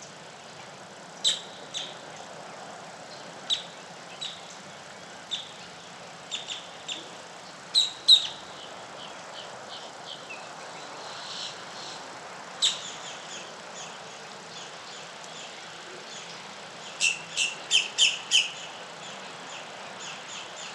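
Wild birds chirping: scattered short, sharp calls over a steady faint background hiss, with a quick run of about five loud notes near the end.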